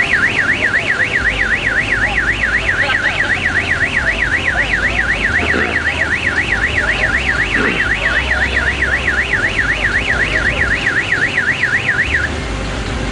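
Electronic alarm siren warbling rapidly up and down, about four sweeps a second, cutting off abruptly about a second before the end, over a low rumble of idling engines.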